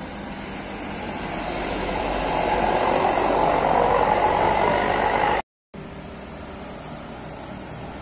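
Tour minibus passing by, its engine and tyres growing louder over about five seconds as it comes close. The sound cuts out completely for a moment just past five seconds, then gives way to a steadier, quieter engine noise.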